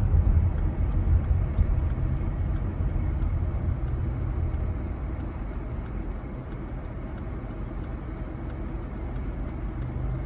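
Car interior road noise: a low engine and tyre rumble on wet pavement that eases off over the first half as the car slows at an intersection.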